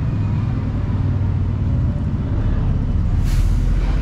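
Diesel engine of a heavy lorry running close by, a steady low rumble, with a short hiss of air brakes a little over three seconds in.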